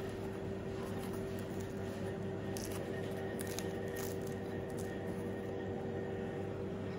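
Fingers pressing and squeezing the puffy, wood-fired crust of a Neapolitan pizza, a few faint crackles from the crisp crust, over a steady machine hum of several tones.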